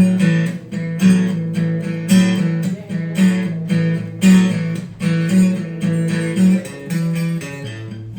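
Guitar playing the instrumental introduction of a song, chords struck with a strong accent about once a second, with no vocals yet.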